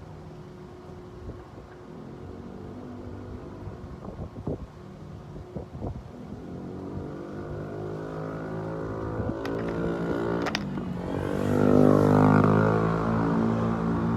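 A motorcycle engine running and growing steadily louder as it comes closer, loudest about twelve seconds in. A few sharp knocks come in the middle.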